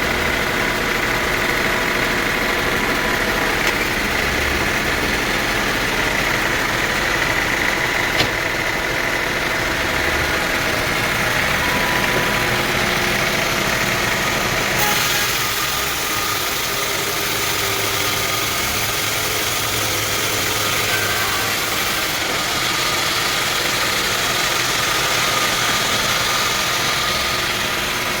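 Sawmill machinery running steadily, an engine-like drone with a steady whine; the sound changes abruptly about halfway through.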